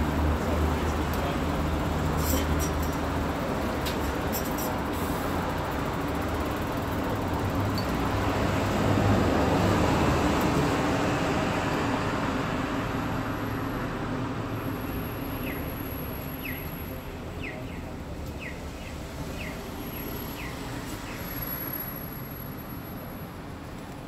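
Passing road traffic: a broad rushing noise that builds to its loudest about ten seconds in and then fades away, with a low hum at first. A few short faint ticks come near the end.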